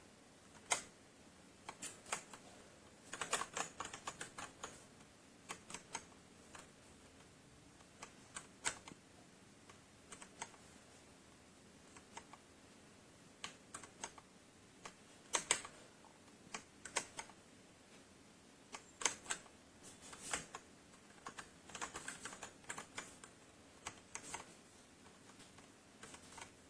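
Typing on a Redragon K617 60% mechanical keyboard: irregular key clicks, sometimes in quick runs of several strokes and sometimes single, with short pauses between them.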